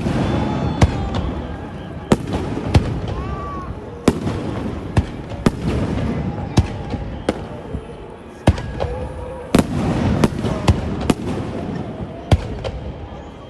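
Aerial fireworks shells bursting overhead: more than a dozen sharp bangs at irregular intervals, every half second to second, over a continuous rumble of echoing reports.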